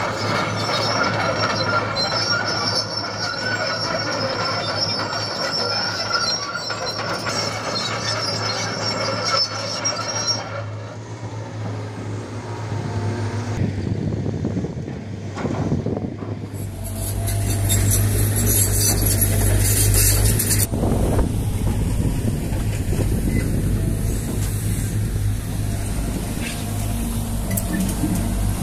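Caterpillar 320GC hydraulic excavators at work, their diesel engines running steadily, with high whining, squealing tones for the first ten seconds or so. The sound drops back for a few seconds, then grows louder and harsher from about seventeen seconds in.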